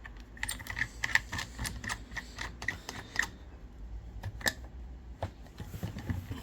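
Small hard clicks and taps of prying tools against a smartphone's frame and cracked screen as the display is worked loose: a quick run of clicks for about three seconds, then a few scattered ones.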